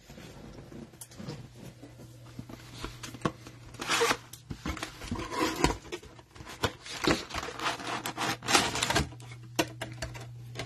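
A cardboard box of football trading-card cello packs being opened by hand and the cellophane-wrapped packs lifted out: irregular rustling, crinkling and cardboard scraping with small clicks, busiest from about four seconds in until near the end.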